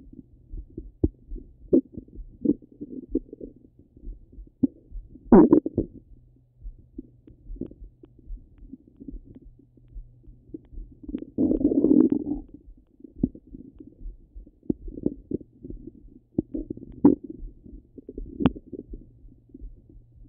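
Stomach gurgling heard through a Littmann stethoscope pressed to the abdomen: scattered short gurgles and pops, with a louder gurgle about five seconds in and a longer rumbling gurgle around eleven to twelve seconds in. A faint steady low hum lies underneath.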